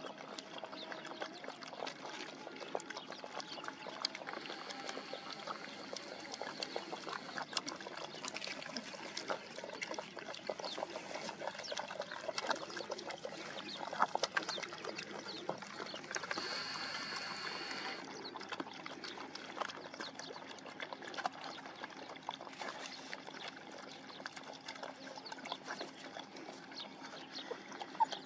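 A litter of puppies lapping water from a bowl together: a dense, continuous patter of wet licks and slurps. A short hissing noise comes about two-thirds of the way through.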